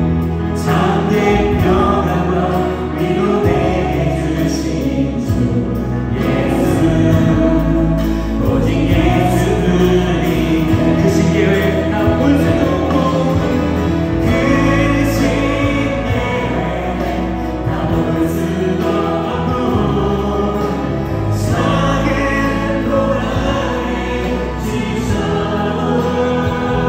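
Church praise team of women's and men's voices singing a Korean worship song into microphones, backed by a band of keyboard, electric guitar, bass guitar and drums, amplified through the sanctuary PA.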